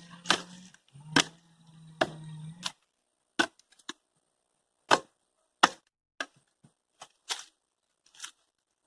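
A hand tool chopping into old dry wood: about ten sharp, separate strikes at an uneven pace. A low steady drone runs under the first few strikes.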